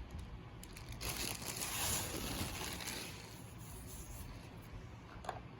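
Soft rustling, crinkling noise that swells about a second in and dies down after about three seconds, with a faint click near the end.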